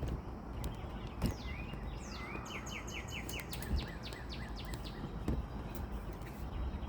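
Songbird chirping: a quick run of short, repeated high chirps about two seconds in, with a few scattered calls around it, over a steady low outdoor rumble.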